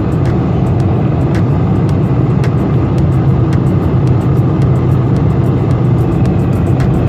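Steady, loud rumble of an airliner's jet engines and rushing air heard inside the passenger cabin, with faint short knocks about once a second.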